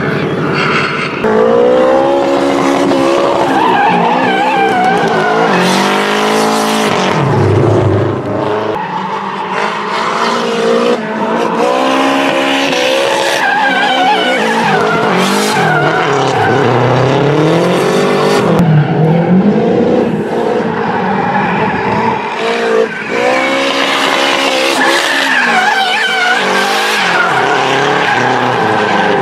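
Nissan S13 Silvia drift car's engine revving up and down again and again as it drifts, with its tyres squealing and skidding on the asphalt.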